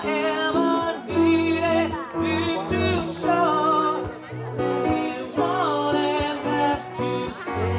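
A vocal group singing a slow song in held notes with vibrato, accompanied by acoustic guitar.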